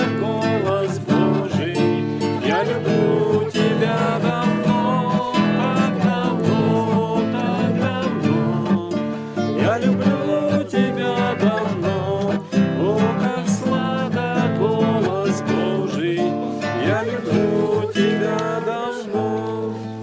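Acoustic guitar strummed steadily, accompanying voices singing a Christian song.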